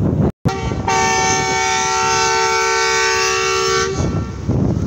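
Diesel locomotive air horn of a ZCU-30 sounding one long chord of several notes as the coal freight train departs. It comes in faintly, is held at full strength for about three seconds and cuts off about four seconds in, over wind noise on the microphone.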